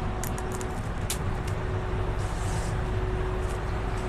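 Steady low mechanical drone with a constant hum, and a few light clicks in the first second.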